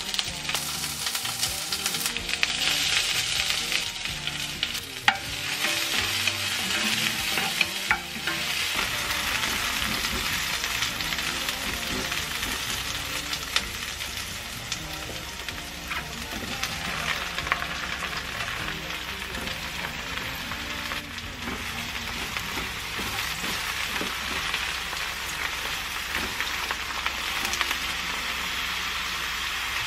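Chopped green onion, garlic and dried chili frying in hot olive oil in a pan, a steady sizzle that starts as the onion drops into the oil. A few sharp clicks come through as the pan is stirred.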